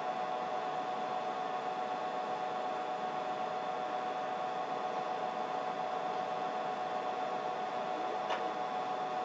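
Steady hum and whir with a faint whine from the powered-on HP 54845A oscilloscope, a PC-based instrument, most likely its cooling fans, with one faint click about eight seconds in.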